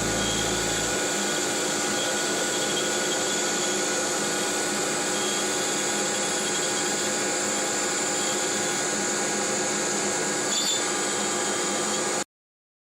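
Steady running noise of a CNC router: a high spindle whine over the rushing of dust extraction. A low rumble drops out about a second in, and the sound cuts off abruptly near the end.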